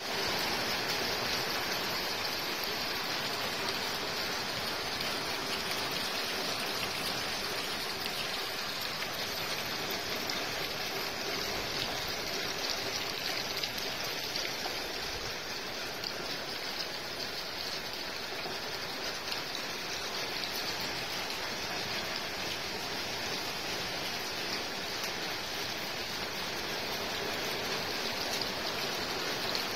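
Steady rain falling: an even hiss that holds at one strength throughout.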